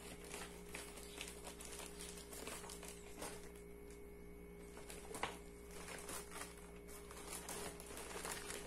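Scissors snipping a plastic mailer bag open, then the plastic rustling and crinkling as it is handled, in scattered faint clicks and rustles. A steady low hum runs underneath.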